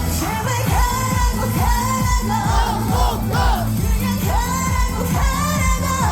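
Live trot song: a woman's voice singing a wavering melody with vibrato over an amplified backing track with a steady beat.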